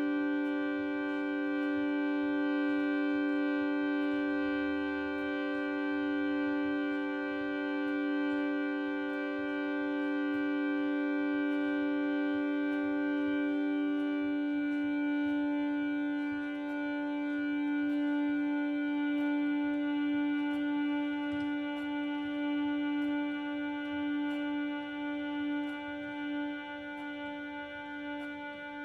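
Harmonium reeds holding a sustained chord over a strong low note, part of a piece for harmonium and tape. About halfway a few middle notes drop out and the upper tones begin to pulse and waver, with faint ticking above.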